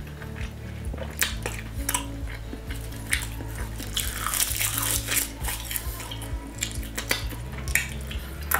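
Close-up eating sounds: chewing with sharp wet mouth clicks, and a bite into a piece of roasted chicken about four seconds in. Background music with a steady low bass line plays throughout.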